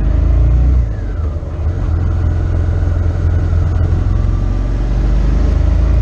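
Motorcycle engine running under way, heard from the riding bike. The engine note eases off briefly about a second in, then pulls steadily again.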